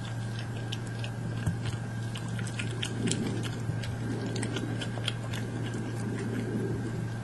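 Badgers crunching and chewing nuts close to the microphone: many small, sharp cracks come irregularly, over a steady low hum.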